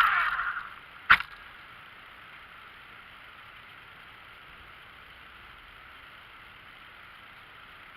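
RC car's high motor whine dying away within the first second, then a single sharp click, then only a faint steady hiss.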